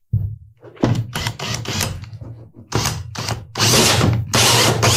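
Cordless drill spinning a hole saw into a drywall ceiling. A steady motor hum runs under grinding that comes in several pushes as the saw bites into the gypsum, loudest over the last second and a half.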